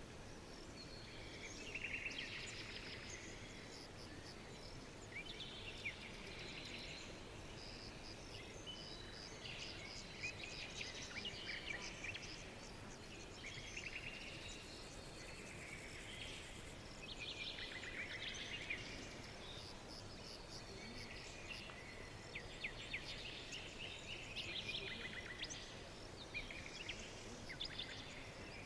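Several songbirds chirping and singing in short, overlapping trills over a steady background hiss of outdoor ambience.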